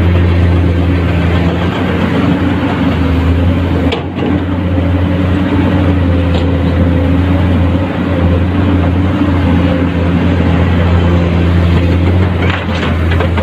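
Diesel engine of a Komatsu PC210-10 hydraulic excavator running steadily with a deep, even hum. About four seconds in there is a short knock and a brief dip in level.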